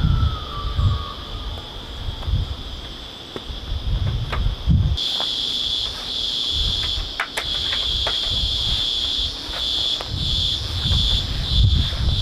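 A steady, high-pitched insect chorus that gets suddenly louder about five seconds in and pulses near the end, over gusts of wind on the microphone and a few light clicks and knocks.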